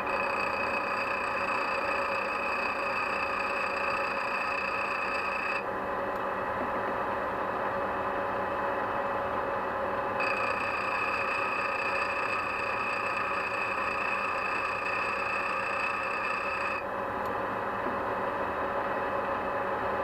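Bench grinder running steadily while the end of an engine valve stem is faced square on its wheel. A high whine of the wheel cutting the metal sounds twice for several seconds each, with the motor's hum under it throughout.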